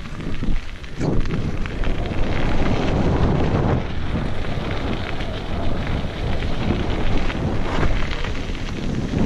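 Mountain bike tyres rolling and crunching over loose gravel at speed, with the bike rattling and wind rumbling on the action camera's microphone. The noise jumps up about a second in.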